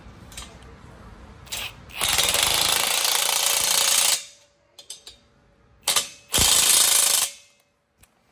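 Cordless impact driver hammering a bolt tight through a socket into the steel frame of a patient lift base, in two bursts: a longer one of about two seconds and, after a pause, a shorter one of about a second. Short sharp clicks come before each burst.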